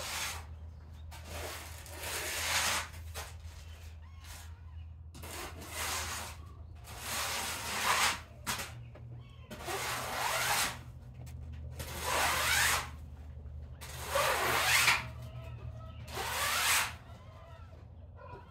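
Repeated bursts of rustling, each about a second long and coming every second or two, over a steady low hum.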